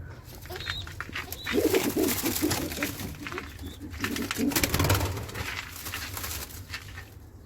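Doves cooing in two low, pulsing bouts, about one and a half seconds in and again about four seconds in, with some rustling in between.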